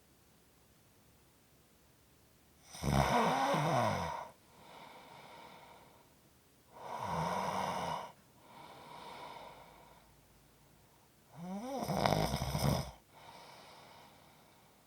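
A person snoring in sleep: three loud snores about four seconds apart, each followed by a quieter breath.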